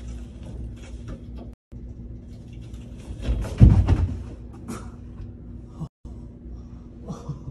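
A heavy thump about three and a half seconds in as a man falls from a handstand on a metal pipe bar, his hand slipping off the pipe.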